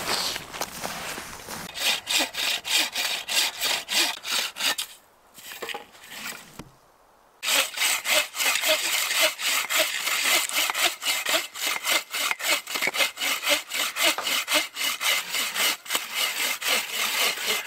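Bow saws cutting through hardwood firewood logs in quick, steady back-and-forth strokes. The sawing breaks off for a couple of seconds about five seconds in, then carries on.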